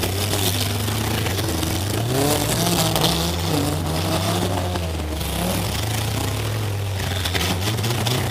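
Demolition derby car's engine heard from inside the cab. It runs steadily, revs up and down a few times through the middle, then settles back to a steady run.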